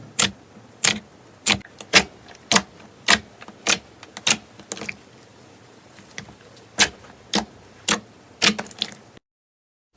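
Crunchy slime being pressed and squeezed by hand, giving a sharp crackling pop with each press, about two a second. The sound cuts out to complete silence near the end.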